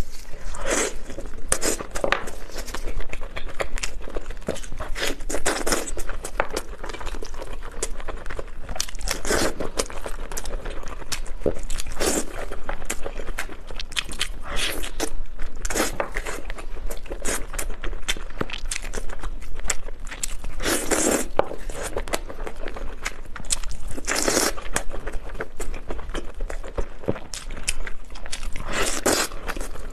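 Close-miked eating: biting into and chewing pieces of sticky, sauce-glazed meat, with many short wet smacks and crunches in irregular succession.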